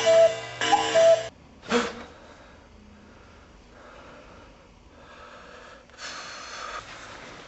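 Cuckoo clock calling twice, each call a higher note dropping to a lower one. A brief short sound follows, then quiet room tone with a soft hiss near the end.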